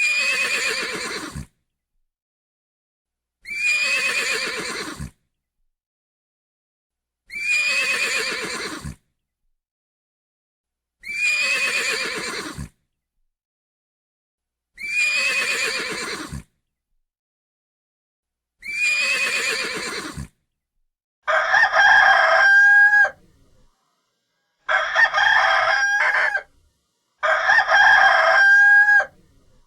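A horse whinnying six times in identical repeats, each a falling, quavering neigh about every 4 seconds. About 21 seconds in, a rooster takes over, crowing three times, louder, each crow holding its pitch.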